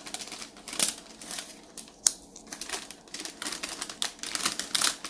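A small bow hair clip being handled and worked open in the fingers: irregular light rustling and clicking, with one sharp click about two seconds in.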